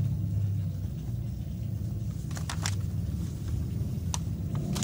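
Paper crackling as a printed warranty card and leaflet are handled, a few quick crinkles about two and a half seconds in and again near the end, over a steady low rumble.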